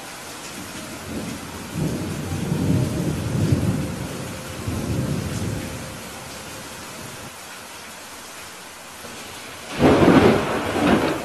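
Steady rain with thunder: a low rumble from about two to five seconds in, then a sudden, louder thunderclap near the end that rolls off over a second or so.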